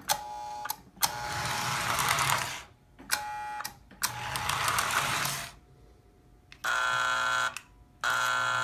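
American Flyer #405 Silver Streak toy diesel locomotive running on its track, its motor whirring with a hum in bursts separated by short buzzy pauses. Two short, steady buzzing blasts, like an electric toy-train horn, follow near the end.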